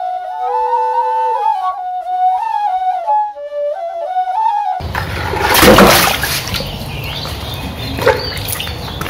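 A short flute-like melody for about the first five seconds, ending abruptly. Then water splashing and sloshing in a metal bowl holding a large Nile tilapia, loudest just after the change.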